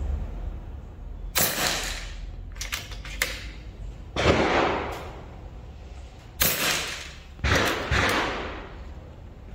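FX Crown MK2 .22 PCP air rifle being fired four times, a second or two apart. Each shot is a sharp report with a short decaying tail. Lighter clicks come between the first two shots.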